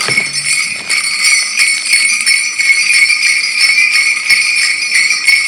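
A string of jingle bells being shaken continuously, a steady bright jingling with many quick shakes.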